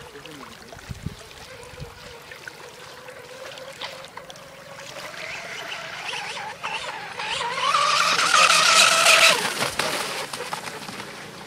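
Radio-controlled racing boat's motor whining at high speed, rising in pitch and growing louder as the boat runs in toward the shore, with the hiss of its spray. About nine and a half seconds in, the pitch drops sharply as it passes, and the sound fades.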